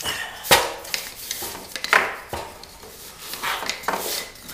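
A laminate flooring offcut being handled on the floor and pushed against the foot of a wooden door jamb: a few sharp wooden knocks, loudest about half a second in, with scraping between them.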